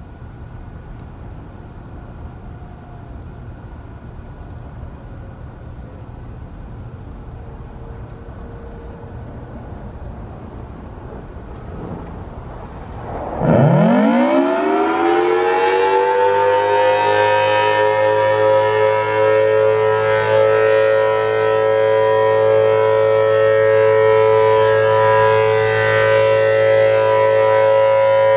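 Federal Signal Thunderbolt 1000T outdoor warning siren starting its alert signal about halfway through. It winds up quickly from a low pitch to a loud, steady tone of several pitches held together. Before it starts there is only a low steady background rumble.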